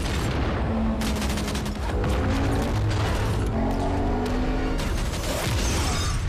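Battle sound mix of rapid gunfire and explosions over a constant low rumble, the firing densest through the middle, with a film score's held notes underneath.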